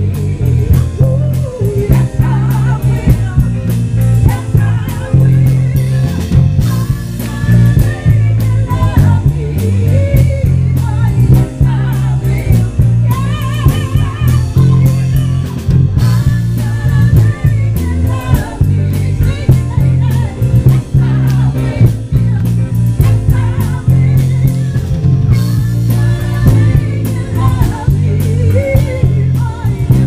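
Live Motown band playing over PA speakers: women singing lead and backing vocals over electric guitar and drum kit, with heavy bass from the nearby speakers.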